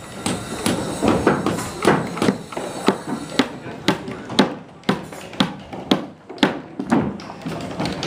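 Hammer blows on OSB subfloor sheathing laid over wooden floor joists, about two sharp knocks a second, with voices in the background.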